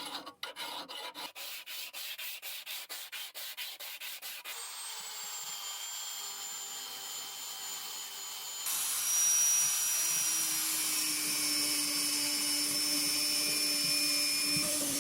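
Sandpaper rubbing by hand on the metal handle of a vintage Craftsman pipe wrench to take out rust pitting. The first few seconds are quick back-and-forth strokes, about five a second. Then it becomes a steadier rubbing that grows louder about nine seconds in.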